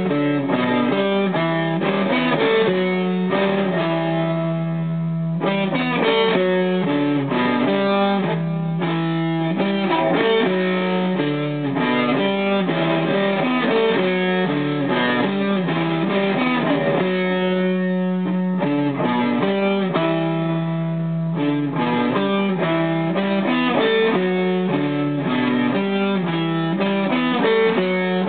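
Les Paul-style electric guitar played solo: a steady run of picked notes ringing over held low notes.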